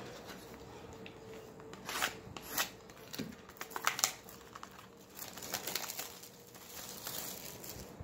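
Plastic wrap on a trading card box being torn and crinkled off by hand: irregular crackles and rustles in short spells.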